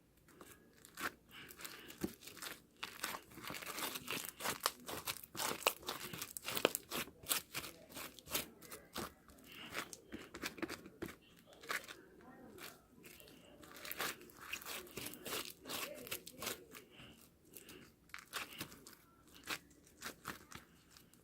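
Slime being squished and worked by hand, giving a dense, irregular run of small crackling pops and clicks that thins out near the end.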